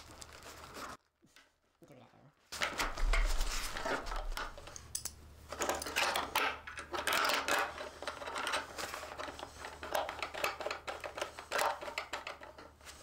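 Irregular clicking and clinking of a 5 mm Allen key working the pillion-seat bolt on a motorcycle's plastic tail section, with small knocks of hands and tools on the seat and bodywork. The sound stops for about a second and a half near the start.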